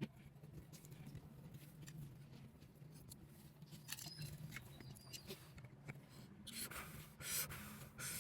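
Faint hand work on a monoblock water pump's mechanical seal: light clicks and short scrapes as the seal stone is seated and worked in with epoxy putty, with a longer, louder rubbing scrape about seven seconds in. A faint steady low hum lies underneath.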